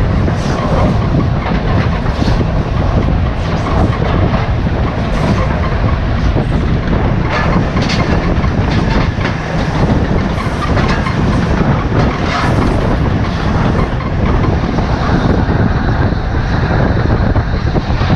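LNER Class A4 steam locomotive 60009 running along the line at speed: a loud, steady rush of running noise with irregular clatter of the wheels on the track.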